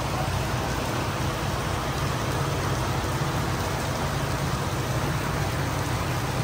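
Steady heavy rain, with a steady low hum of a running vehicle underneath.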